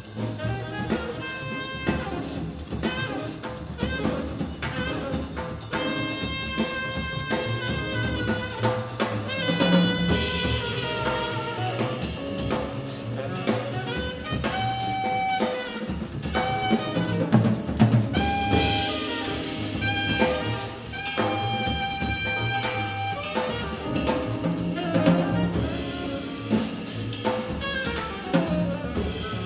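Small jazz band playing live: a tenor saxophone carries the melody over plucked double bass and a drum kit played with sticks on cymbals and snare.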